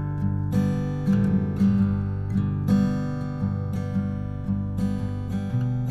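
Background music: strummed acoustic guitar playing chords at a steady, gentle pace.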